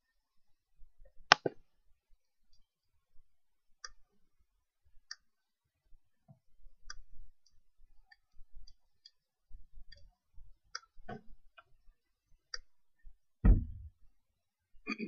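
Sparse, irregular clicks and taps, a dozen or so spread out with gaps of up to a couple of seconds, and one heavier low thump about thirteen and a half seconds in.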